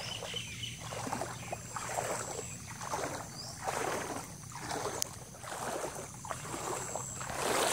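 Footsteps wading through shallow floodwater: a sloshing splash with each stride, a little under two a second.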